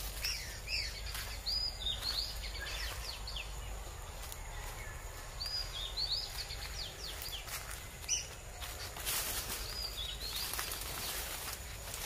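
Forest birds calling in short, high chirps that come in bursts about a second in, around six seconds in and near ten seconds, over a low steady rumble. A few brief rustles or clicks come toward the end.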